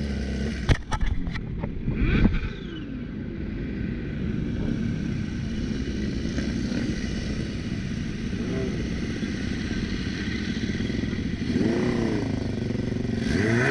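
Motorcycle engines running at low speed. There are a few sharp knocks about a second in, and short throttle blips that rise and fall in pitch near the end.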